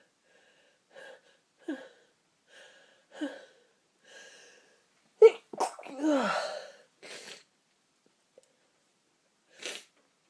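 A person sneezing: a series of short catching breaths as the sneeze builds, then a loud sneeze burst a little past five seconds in, followed by a few breaths.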